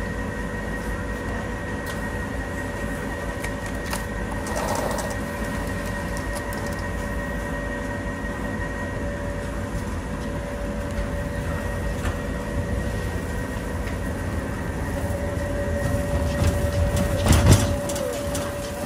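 Steady rumble and hum of a big warehouse store, with a wire shopping trolley rattling on its wheels over the concrete floor. A louder clatter comes near the end.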